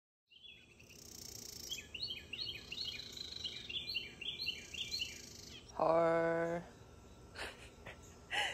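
A songbird singing a quick series of high chirping notes, about four a second, for some three seconds. About six seconds in comes a short, low voice sound, followed by a couple of faint clicks.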